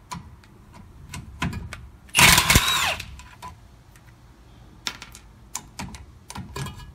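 Socket wrench on a long extension working the rusty driveshaft-to-pinion-flange bolts: irregular metallic clicks and ticks of the ratchet and socket, with one louder rasping burst lasting under a second a little over two seconds in.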